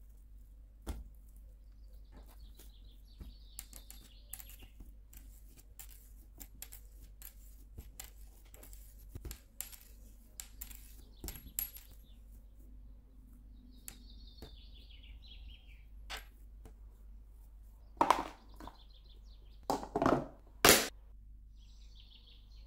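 Hands working sticky pizza dough on a kitchen worktop: many small, soft, wet clicks and pats as it is folded and shaped into a ball. Near the end, three louder knocks as a plastic food container is handled. Faint bird chirps come and go in the background.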